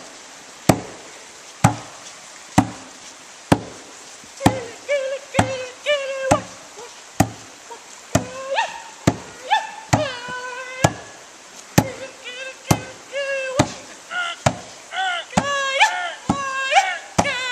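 A drum beaten in a slow, steady beat, about one stroke a second. From about four seconds in, high voices join over the beat with whooping, chant-like calls.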